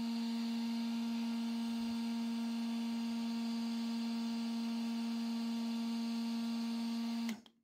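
Parkside PHLGA 20-Li A1 cordless heat gun running at 550 °C: a steady hum from its fan motor with a faint hiss of air, stopping abruptly near the end.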